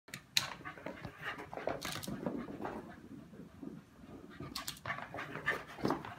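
Young Scottish terrier panting, winded from running laps, with a few sharp clicks scattered through.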